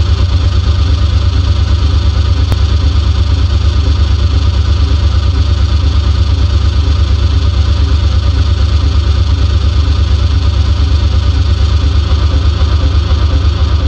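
Loud, steady low rumbling drone with a fast, even flutter, like an idling engine, as part of a song's intro.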